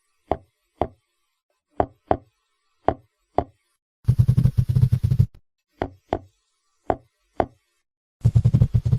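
Seahorse clicks, coming in pairs about half a second apart. Twice, about four seconds in and again near the end, comes a low, rapidly pulsing rattle about a second long, like a growl.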